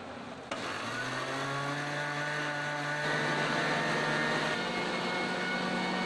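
Panasonic mixer grinder switched on with a click: its electric motor spins up over about two seconds, then runs steadily with a whine, its pitch stepping slightly higher later on.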